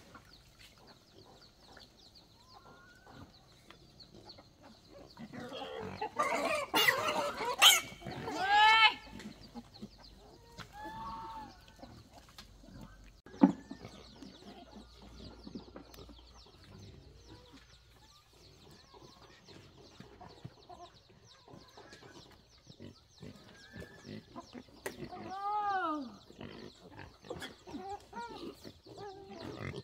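Pigs calling, with a loud burst of overlapping high-pitched cries about six seconds in, a single sharp knock about halfway, and a few more calls near the end.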